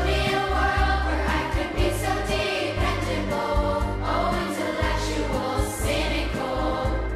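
Music with choral singing over a deep, steady bass and a regular beat.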